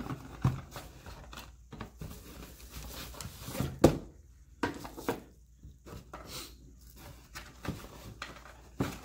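Cardboard box and bubble-wrapped lanterns being handled: rustling and crinkling packaging with scattered knocks, the loudest a thump about four seconds in.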